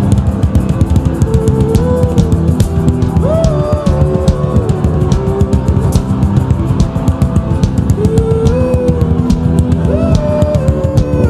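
Live worship band music: a fast, busy drum kit beat under a held melodic lead line that slides up and down in pitch.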